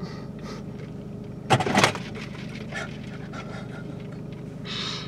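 Car engine running steadily, heard from inside the cabin as a low hum. A short, loud burst of sound cuts in about a second and a half in, with a softer hiss near the end.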